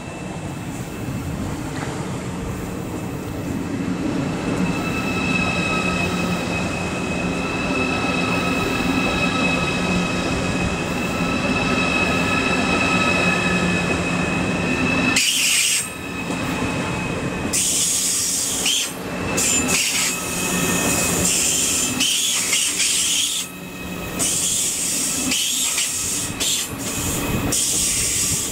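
Deutsche Bahn ICE 4 high-speed electric train: a steady electrical whine with several held tones over a low hum, growing louder. About halfway through it gives way to the rushing, rolling noise of an ICE 4 passing close by at speed, with short dips as the cars go past.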